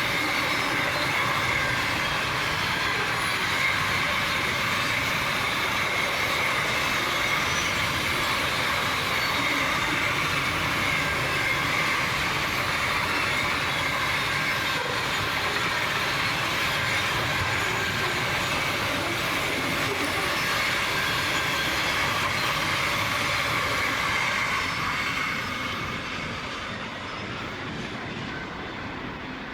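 Container wagons of a long freight train rolling past: a steady rumble of steel wheels on rail with a faint high wheel squeal, fading over the last few seconds as the train draws away.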